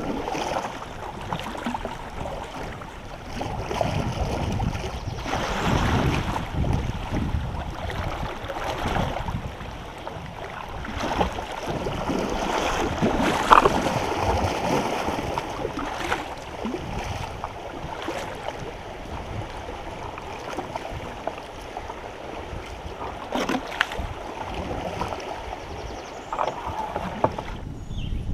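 Water splashing and rushing around a kayak, swelling and easing every few seconds, with wind on the microphone and a few short knocks, the loudest about halfway through.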